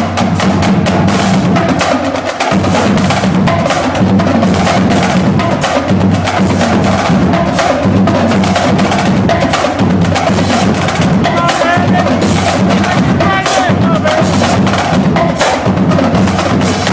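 Marching drumline playing a loud cadence: snare drums in rapid, dense strokes over tuned bass drums pounding a steady rhythm.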